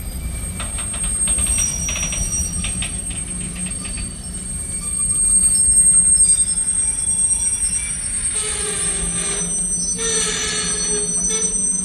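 Freight cars of a slow-rolling manifest train passing, a steady rumble of steel wheels on rail with clicks over the joints. High-pitched wheel squeal comes in and grows stronger about two-thirds of the way through.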